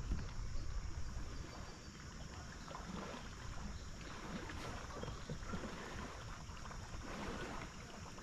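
Water lapping and splashing against a kayak hull in irregular small slaps, over a low rumble of wind on the microphone.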